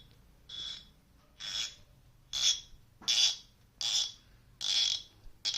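Cork stopper of a Martell VSOP cognac bottle squeaking and scraping in the glass neck as it is twisted loose. There are about seven short squeaks, roughly one every 0.8 s.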